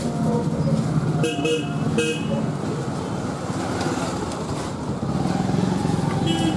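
Street traffic noise with short vehicle-horn toots: one about a second and a half in, another at two seconds, and a third near the end.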